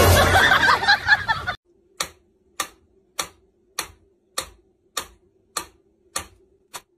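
A loud, dense burst of sound cuts off about a second and a half in. It is followed by a mechanical pendulum metronome ticking evenly, a little under two ticks a second, and the ticks come twice as fast near the end.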